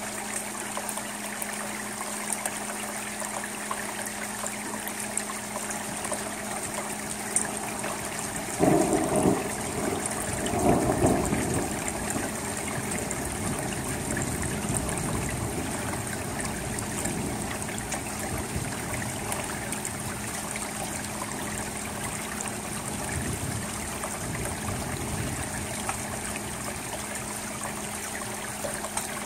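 Steady rain falling on a shingle roof and metal gutter, an even hiss with water trickling, and a steady low hum under it. Two brief louder rushes of noise come about nine and eleven seconds in.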